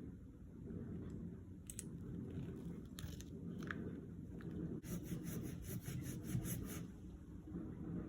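Silky pruning hand saw cutting through goat willow wood: a few single rasping strokes, then from about halfway a quick, even run of strokes, about four a second.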